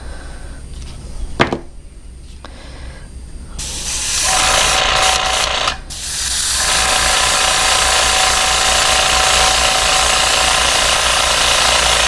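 Airbrush spraying base white paint at low pressure (5 to 10 PSI): a steady hiss that starts about three and a half seconds in and breaks off briefly near six seconds, with a steady hum underneath. A light knock comes before it, about a second and a half in.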